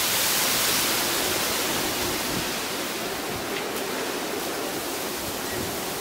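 Strong typhoon wind rushing through dense tree foliage, a steady hiss of tossing leaves that eases a little after the first couple of seconds.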